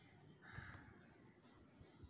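Wire whisk stirring runny cake batter in a glass bowl: faint wet swishing, with a soft knock about half a second in.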